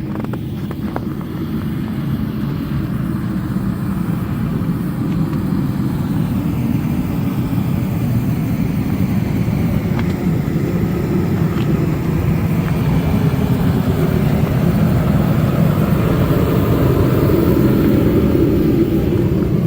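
Freightliner semi truck's diesel engine running steadily, a low rumble that grows gradually louder.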